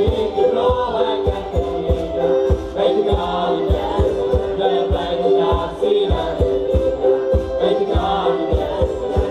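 Madeiran folk dance music: group singing over a steady low beat of about three strokes a second.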